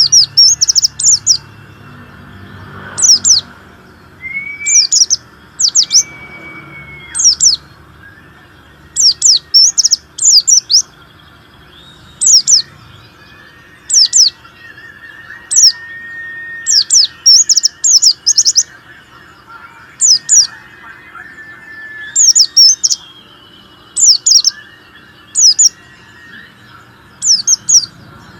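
A pleci (white-eye) singing hard: loud, very high, quick chirps in short clusters of two to five notes, repeated every second or two, over fainter drawn-out whistled tones.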